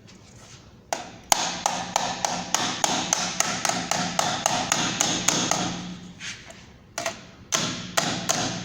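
Hammer striking sheet metal to crimp a bottom onto a rim, a quick run of blows at about three or four a second with a metallic ring. The blows stop near six seconds, then a few more come near the end.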